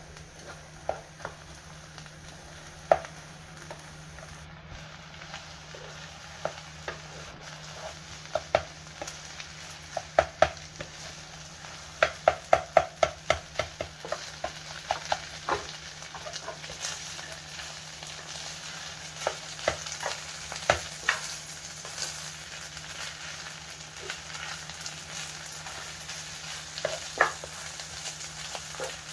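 Kimchi fried rice with pork belly and egg sizzling in a white nonstick frying pan as a plastic spoon-spatula stirs and scrapes it, knocking against the pan in sharp clicks, with a quick run of taps around the middle. The sizzle grows a little louder in the second half.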